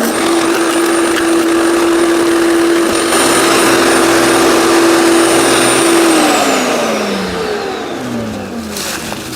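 15 amp electric wood chipper shredder running at full speed with a steady hum and high whine, chewing through branches about three seconds in. About six seconds in its motor and blades wind down, the pitch falling steadily over the last few seconds.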